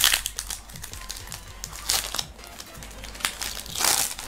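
Foil booster-pack wrapper of Pokémon trading cards being torn open and crinkled by hand. It comes in several sharp crackling bursts: one right at the start, others about two and three seconds in, and the longest near the end.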